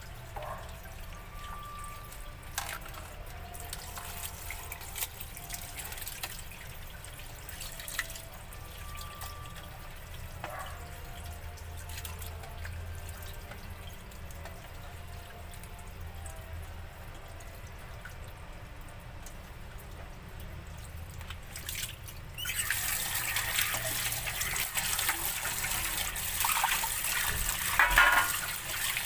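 Small clinks and knocks of handling at a kitchen counter, then about three-quarters of the way in a tap is turned on and water runs steadily into a stainless steel tray as fish is rinsed.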